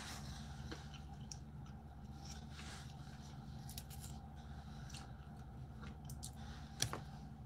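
Faint clicking and crackling of cooked blue crab shell being cracked and picked apart by hand, with one sharper snap near the end, over a steady low hum.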